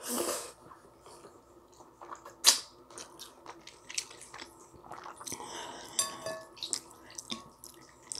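Wet eating sounds from a mouthful of ramyun noodles: a short slurp at the start, then chewing. Wooden chopsticks click and scrape in a glass bowl of noodle broth as she stirs. The loudest is a sharp click about two and a half seconds in, and a clink near six seconds rings briefly.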